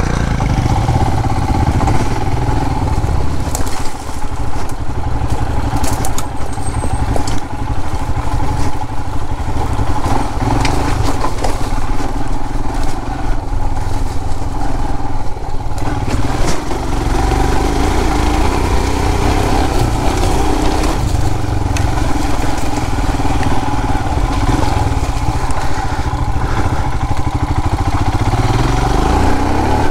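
Motorcycle engine running steadily, rising in pitch near the end as it revs up.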